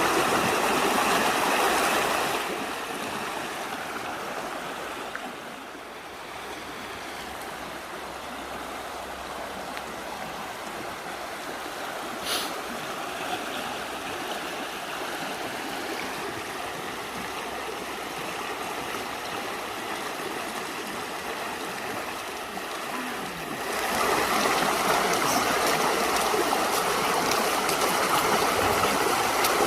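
River flowing, a steady noise of running water that drops quieter about two seconds in and grows louder again near the end.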